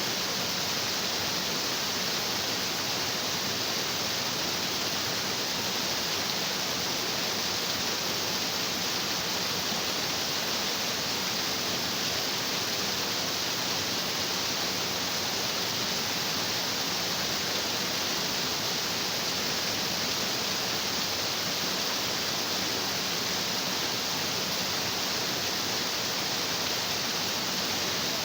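Stream of water rushing over rocks: a steady, unbroken rushing with no changes.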